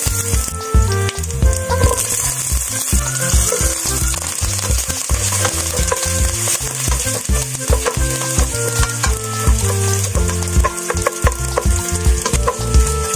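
Chopped garlic, onion and ginger sizzling as they sauté in a stainless steel pot, stirred with a spatula. Background music with a steady beat runs underneath.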